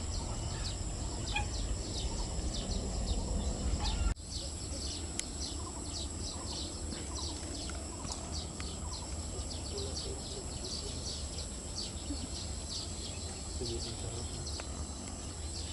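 Small birds chirping in quick, repeated short calls over a steady low rumble.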